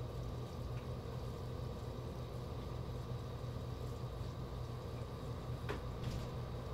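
Steady low mechanical hum with a hiss, with two faint ticks near the end.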